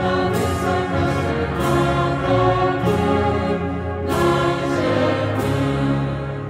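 Mixed choir singing a Polish Christmas carol with a wind band of saxophones and brass, sustained chords moving in a slow, regular pulse. The last chord begins to die away near the end.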